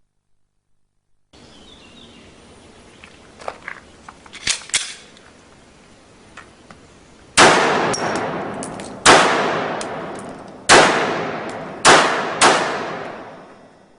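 Ekol Agent blank-firing pistol firing five blank shots, the last two close together, each followed by a long echoing decay. A few light clicks of handling come before the first shot.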